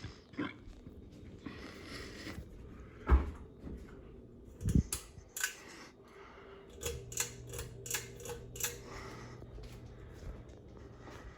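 Scattered sharp clicks and knocks, the loudest about three seconds in, then a quick run of clicks as a Heritage Hugger ceiling fan's motor comes on with a low steady hum about seven seconds in.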